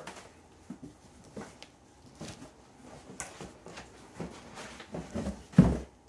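Cardboard box and packing material rustling and knocking in an irregular run of short handling noises as a portable fridge is unpacked, with a loud thump near the end as the fridge is lifted out of the box.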